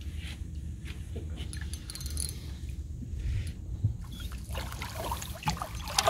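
Low steady rumble with faint water sounds and a few light clicks as a hooked carp is played in on a spinning rod from a boat, ending with the carp splashing into the landing net.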